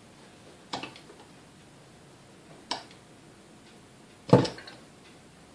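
Steel screwdriver tip picking crud out of the screw slot in a KitchenAid mixer's metal planetary: three sharp metal-on-metal clicks spread over a few seconds, the loudest about four seconds in.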